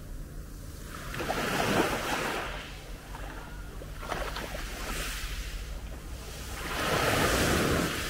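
Small sea waves breaking and washing up a fine-pebble beach in three surges of foamy hiss, the last and loudest near the end.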